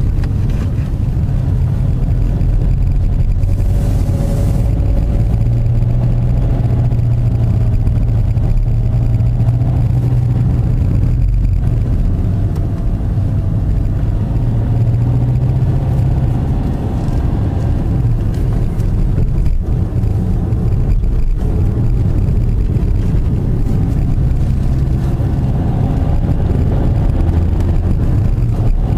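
Car engine and tyre noise heard from inside the cabin while driving, a steady low drone whose engine note rises and falls gently with speed.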